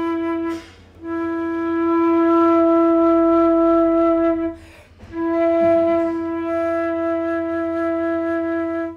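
Concert flute playing long notes on one pitch, E, each held about four seconds with short breaths between. The tone is being shaped toward a focused, centred sound, as in a tone-colour exercise.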